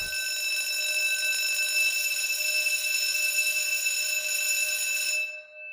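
Fire alarm ringing steadily, then cutting off about five seconds in, its ringing tone fading away after it stops.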